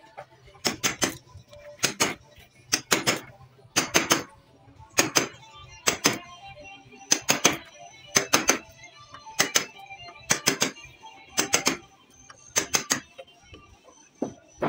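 Hammer striking a wood chisel as it chops out a joint in a beam of ulin (Borneo ironwood): sharp knocks in quick groups of two or three, about once a second.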